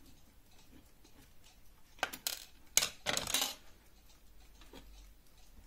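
Small metal clock-movement parts clinking and rattling against each other and the workbench in a short cluster of sharp clicks a couple of seconds in, as a screw is taken out of a lantern clock movement and set down.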